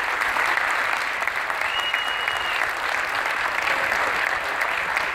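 Audience applauding steadily, a dense patter of many hands clapping, with a short high steady tone about two seconds in.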